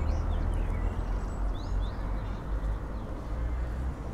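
Outdoor ambience: a steady low rumble, with a few faint, short bird chirps near the start and again about a second and a half in.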